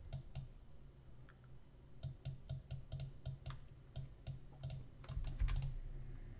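Clicks of a computer mouse and keyboard while pixels are placed in a drawing program: a couple of clicks at first, then a quick run of about three or four a second from about two seconds in. A low steady hum sits underneath.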